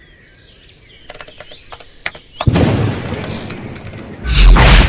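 A few faint chirps and clicks, then a sudden loud rushing crash about two and a half seconds in that slowly fades, and a louder deep boom near the end.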